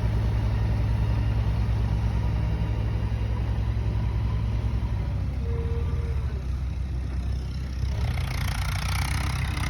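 JCB digger's diesel engine running steadily, with more hiss joining about eight seconds in.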